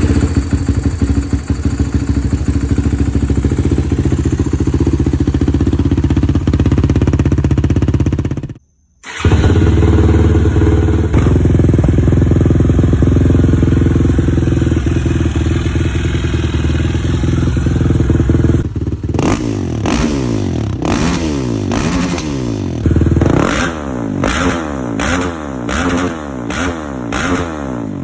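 Suzuki LTR450 quad's single-cylinder four-stroke engine idling, cut off briefly by an edit about a third of the way in, then idling again. In the last third it is blipped repeatedly, the pitch rising and falling about once a second. The clips compare the stock exhaust with a Yoshimura RS-5 aftermarket exhaust.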